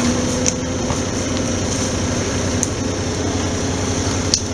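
Engine of a lifted off-road SUV running at low revs, a steady low rumble with a faint hum that fades about a second in. A few sharp clicks sound over it.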